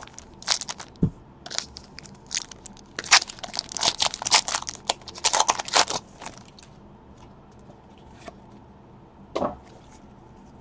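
Foil trading-card pack wrapper crinkling and tearing as it is ripped open, a dense run of sharp crackles over the first six seconds. The cards are then handled quietly, with one rustle about nine seconds in.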